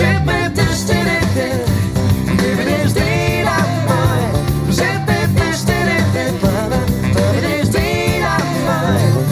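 A pop song playing through a portable Bluetooth speaker, with a pitched melodic line over a strong, steady bass.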